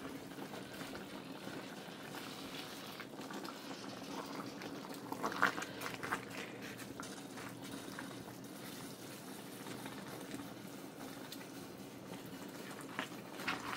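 Broth of meat and dried fish boiling in a pot beneath a heap of pounded cassava leaves, a steady bubbling. Brief knocks come about five seconds in and again near the end.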